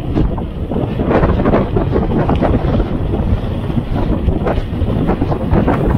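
Wind buffeting the microphone of a mountain-bike rider moving fast downhill: a loud, unsteady rushing.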